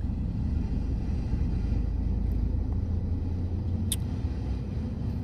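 Road traffic driving past: a steady low rumble of cars and trucks on the road, with one short click about four seconds in.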